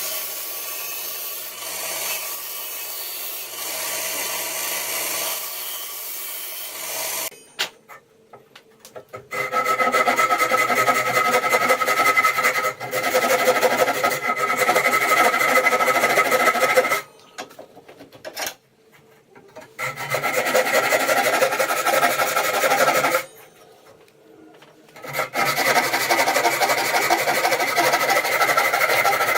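Steel being abraded with a gritty, scraping sound in three long passes, with short breaks between. The first stretch is a softer scrape.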